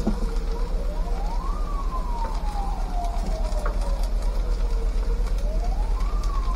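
Emergency vehicle siren wailing: the pitch climbs quickly and then sinks slowly, twice, over a low steady hum.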